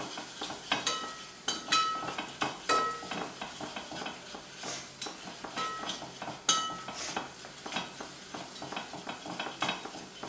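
A spatula stirring and scraping thick masala paste around a nonstick pot, with a low sizzle of frying, kept moving so the masala doesn't burn. Every second or so the spatula knocks the pot with a short, ringing clink.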